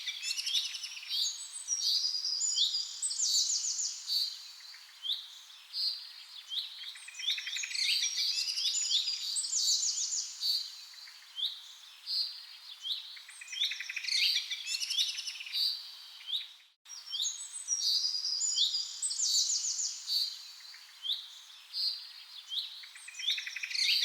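Several songbirds chirping and trilling over one another in a dense, continuous chorus. The sound cuts out for an instant about two-thirds of the way through.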